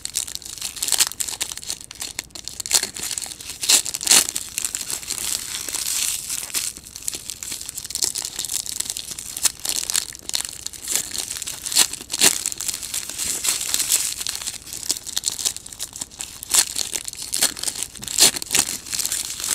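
Foil trading-card pack wrappers crinkling and tearing as packs are ripped open by hand, with sharp crackles throughout.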